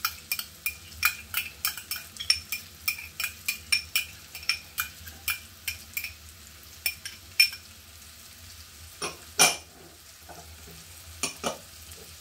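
Metal spoon tapping and scraping against a small glass bowl, knocking chopped onion and garlic out into a frying pan: a quick run of sharp clinks, about three a second, for the first seven seconds or so, then a few more near the end. A faint sizzle of the vegetables in melted margarine runs underneath.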